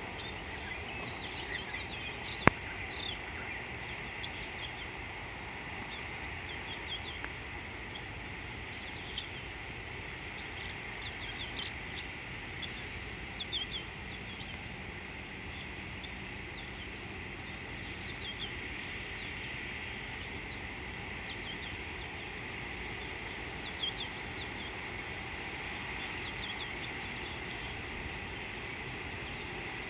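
Insect chorus: a steady high drone with scattered short, high chirps, and a single sharp click about two and a half seconds in.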